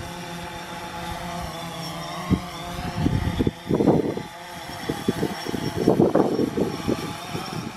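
DJI quadcopter drone's propellers whining steadily as it hovers and comes down, the pitch drifting slightly. Wind buffets the microphone in gusts, heaviest about four and six seconds in.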